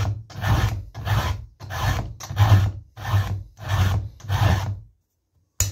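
Round file rasping through a chainsaw chain's cutter tooth in smooth, light strokes, about two a second, to sharpen it; the strokes stop about five seconds in, and a short sharp click follows near the end.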